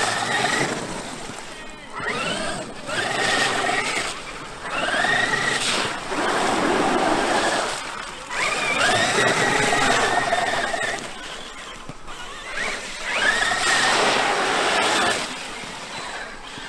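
Traxxas X-Maxx RC monster truck's brushless electric motor whining in about five throttle bursts. The pitch rises quickly in each burst, then holds, and drops away in the pauses between.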